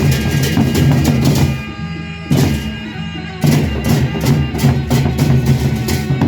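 Balinese gamelan ensemble playing: rapid metallic clashes over steady low gong and metallophone tones. The playing drops out about one and a half seconds in, one accent sounds, and the fast clashing starts again about halfway through.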